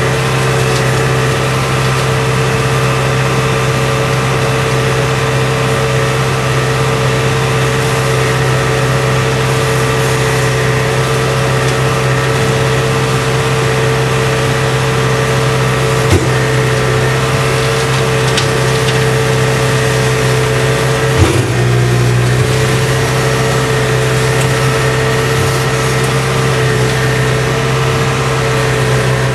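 Steady drone of a tractor engine driving a McConnel PA7700T reach-arm flail mower and its hydraulically driven Multicut 1200 flail rotor while mowing, heard from inside the cab. A brief knock comes a little past the middle, and a sharper one a few seconds later, when the drone dips for a moment.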